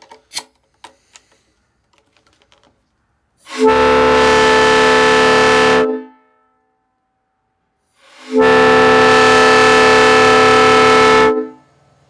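Small three-chime PVC air horn, a scaled-down replica of an RS3L locomotive horn, sounding two long blasts of a steady chord, the second a little longer than the first; a very low, deep sound. A few light clicks come before the first blast.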